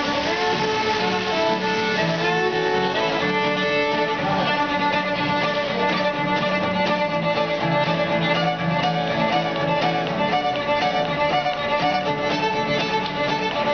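Fiddle and acoustic guitar playing a tune together: the fiddle carries the melody in long bowed notes with slides, over steady, evenly timed guitar strumming.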